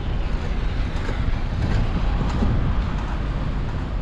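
Steady road and engine rumble of a moving minibus, with wind noise on the microphone.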